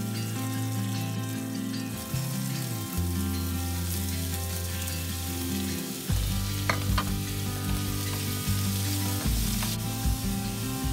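Cashews, green chillies and ginger sizzling in hot oil in a nonstick wok. About six seconds in, sliced onions are in the pan and the sizzle gets louder, with a few taps and scrapes of a wooden spatula stirring.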